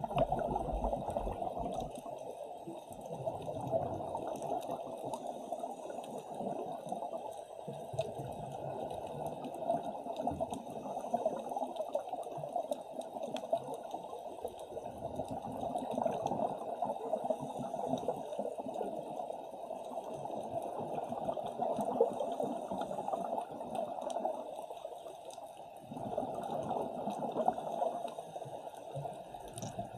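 Muffled, continuous bubbling and rushing water heard underwater, swelling and easing every few seconds: the sound of scuba divers' exhaled air bubbles rising through the sea.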